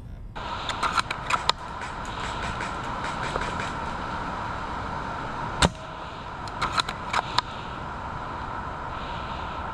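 Airsoft guns firing: scattered sharp pops and clicks, the loudest a single crack a little past the middle followed by a quick cluster of shots, over a steady outdoor background noise.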